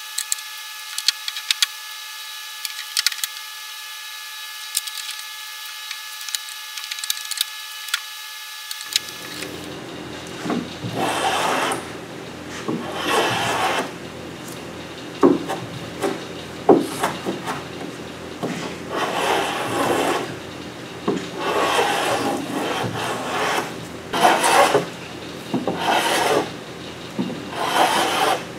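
Thick OSB being worked by hand with a rasping, filing-type tool, in repeated strokes each lasting a second or two. For roughly the first third, a steady high hum with scattered clicks is heard instead; it stops abruptly and the rasping begins.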